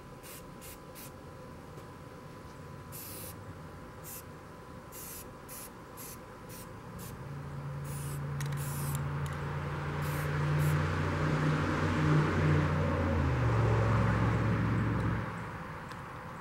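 Aerosol spray-paint can giving a string of short hissing bursts on the metal frame. About seven seconds in, a deep engine hum with a rushing hiss swells up, drops in pitch partway, becomes the loudest sound and stops shortly before the end.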